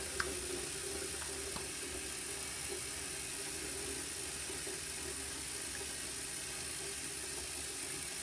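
Water running steadily from a bathroom faucet into the sink as hands are washed under it, over a steady low hum.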